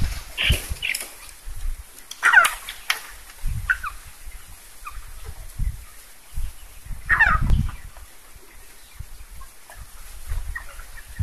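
Broiler chickens calling, with scattered short chirps. Two louder calls fall in pitch, about two seconds in and again about seven seconds in.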